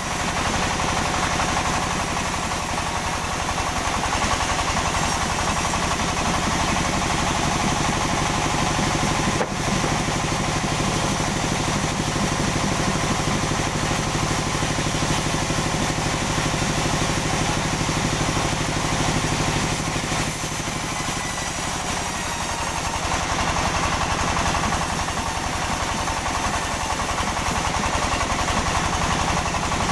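Sawmill engine running steadily, with a brief dip about a third of the way through.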